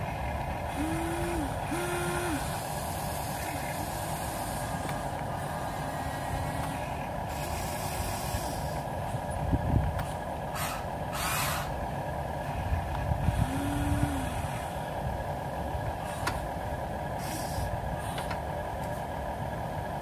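Electric motors and plastic gearboxes of a radio-controlled excavator whining steadily as it swings and lowers its boom and bucket. Brief rising-and-falling tones come twice near the start and once about two-thirds of the way in, and short hissing bursts come a little past halfway.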